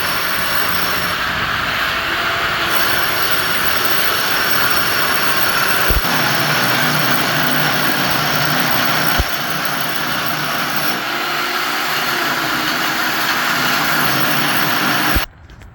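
Loud, steady mechanical running noise from a machine in use, a hiss with a faint hum under it, that cuts off suddenly near the end.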